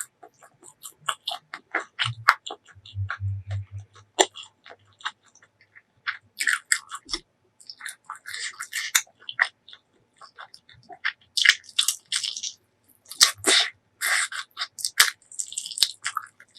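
Close-miked chewing and crunching of food, with many short wet clicks and bursts of crisp crunching noise.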